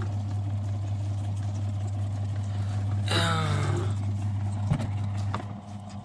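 Spin dryer of a portable mini twin-tub washing machine running with a steady motor hum as it spins wet clothes, the whole machine shaking on the floor. A single knock comes about three-quarters through.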